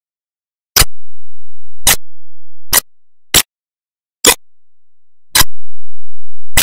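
Sharp clicks, about six, at uneven intervals of roughly one a second, with silence between them.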